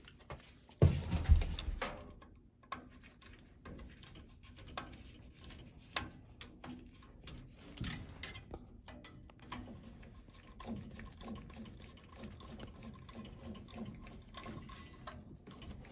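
Scattered small clicks and knocks of hand work on a Honeywell zone valve as its new head is fitted, with a heavier thump about a second in.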